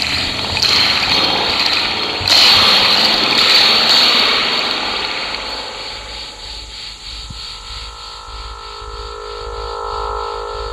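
Experimental electronic soundtrack. A rushing noise swells in twice, sharply, then slowly fades. Sustained tones rise in near the end.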